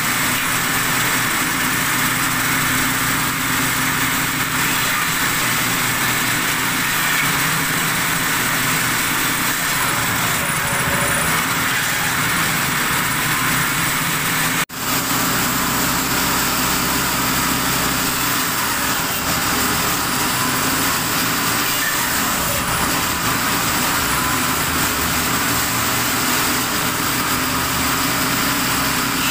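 Circular table saw running steadily as wooden poles and boards are fed through the blade to cut firewood. The sound drops out for an instant about halfway.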